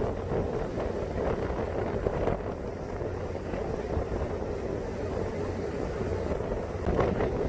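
Tour boat under way: a steady low engine rumble with the rush of the hull and water.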